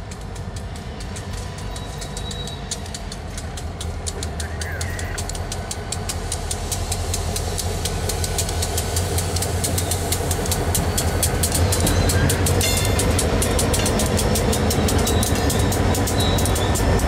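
Norfolk Southern EMD GP38-2 and GP40-2 diesel locomotives approach and pass at the head of a freight train. Their engine drone grows steadily louder over a fast, even clicking.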